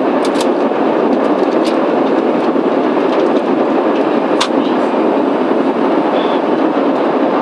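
Steady cabin noise inside a Boeing 737-800, an even rushing hum with a few short clicks and knocks from the cabin.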